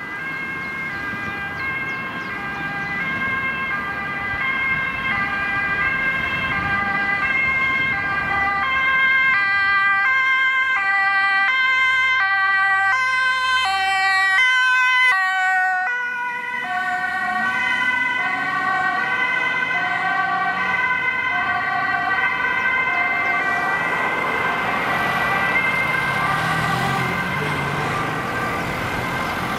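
Dutch ambulance's two-tone siren alternating between a high and a low pitch, growing louder as it approaches. It passes close about halfway through, where its pitch drops, and then fades as it drives away, over traffic noise.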